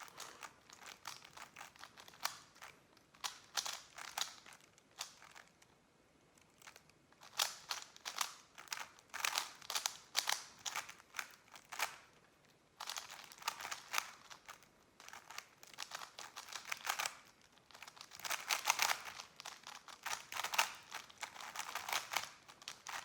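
Rubik's cubes being turned fast in speed-solving: rapid runs of plastic clicks and clacks, with a couple of short pauses between solves.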